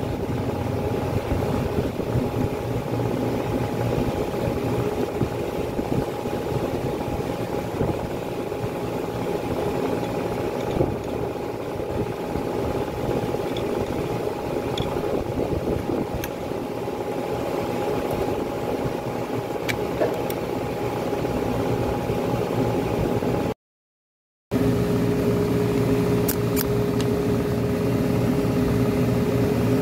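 A steady motor drone with a few faint clicks. It drops out briefly at a cut about 24 seconds in and resumes with a different steady tone.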